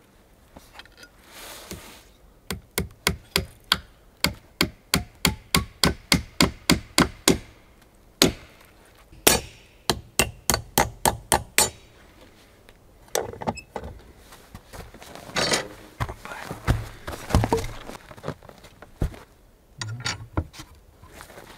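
A hand hammer striking wood in two quick runs of blows, about three a second, then scattered knocks and the scrape of boards being handled as a plank is fitted into a log door frame.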